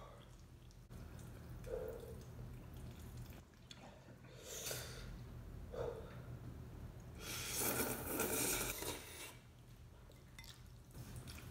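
A person eating spicy instant noodles from a fork: short wet mouth and breathing noises, then one long, louder slurp about seven seconds in.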